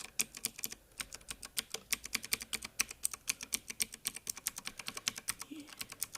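Fast, steady typing on a xecret mechanical keyboard with clicky blue switches (Gateron-type, Cherry MX Blue style): a rapid stream of sharp clicks, about ten a second.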